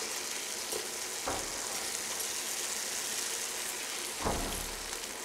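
Onion, tomato and spice masala sizzling in oil in a non-stick pan, with a steady hiss, while a wooden spatula stirs it, scraping the pan about a second in and again near the end.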